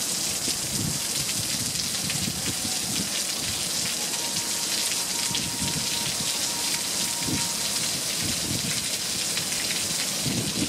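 Steady hiss of splashing water, with irregular low crackles and rumbles through it.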